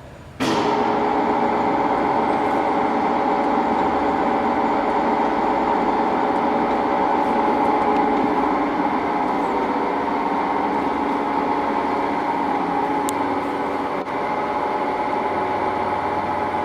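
Blanchard rotary surface grinder running: a steady, loud machine noise with several held tones that comes in suddenly about half a second in.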